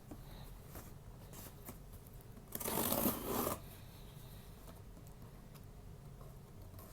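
Cardboard shipping box being opened by hand: one loud tearing rip lasting about a second midway through, with faint rustling and small clicks of handling around it.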